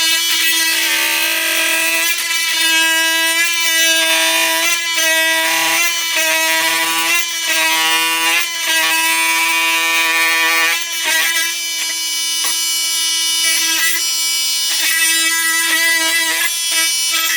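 Flex FX4111 cordless oscillating multi-tool running on high with a steady whine, its dull blade grinding slowly through a cut. The pitch holds while the overtones waver as the blade bites and eases.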